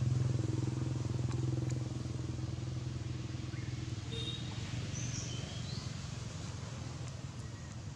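A motor vehicle engine running with a steady low hum, slowly fading away, with a few short bird chirps around the middle.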